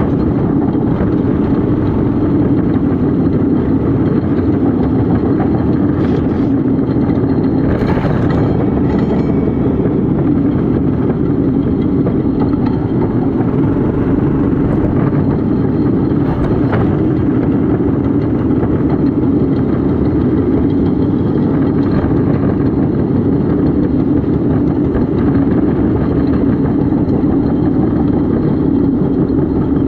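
Small engine of a motorized railcart running steadily as it travels along the rails, with a few short sharp knocks or clicks along the way.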